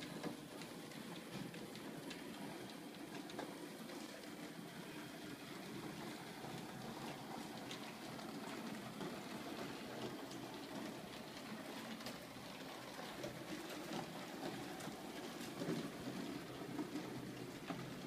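Model steam locomotive pulling a rake of passenger coaches along model railway track, running with a steady rumble from its wheels and scattered small clicks over the rail.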